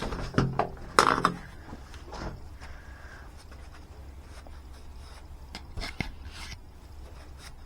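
Knocks, clatter and rubbing from handling a wet vacuum's suction hose and parts, the loudest knock about a second in, over a low steady hum.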